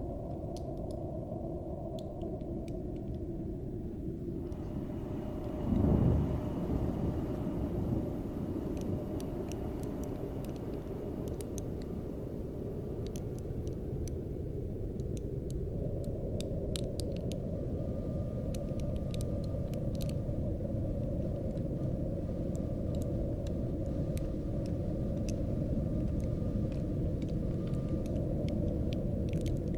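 Cold mountain wind, a steady low rumble with one louder gust about six seconds in and a faint thin whistle over it. Scattered small crackling ticks of frost run through it, thickest in the second half.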